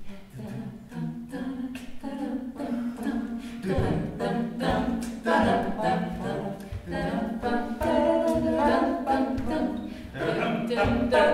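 Unaccompanied singing, starting quietly and growing louder about four seconds in.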